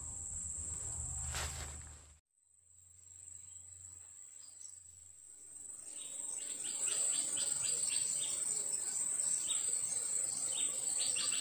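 Steady high-pitched drone of insects such as crickets or cicadas, broken by a moment of silence about two seconds in, then returning with faint rapid chirps in the second half.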